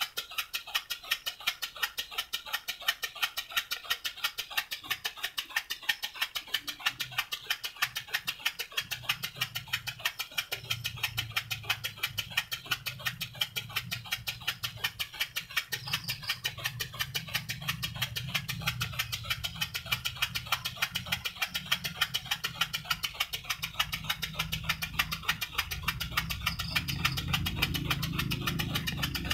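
Homemade miniature steam engine running steadily and spinning its large flywheel: a quick, even ticking. A low hum comes in about nine seconds in and grows louder toward the end.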